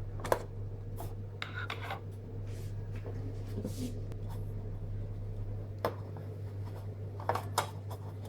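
Handling noise: scattered light clicks and rubbing, the sharpest just after the start and a cluster about seven seconds in, over a steady low hum.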